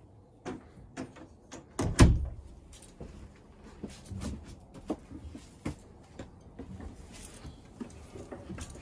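A loud thud about two seconds in, with scattered lighter knocks and clicks, from moving about among the doors and fittings of a truck camper's small interior.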